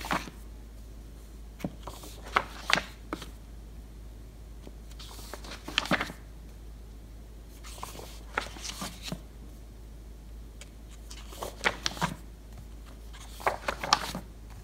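Paper pages of a large spiral-bound book being turned by hand, crisp flicks and rustles coming in short clusters every couple of seconds.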